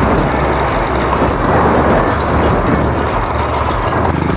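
Small four-stroke motorcycle engine running steadily while riding, heard under a continuous rush of wind and road noise.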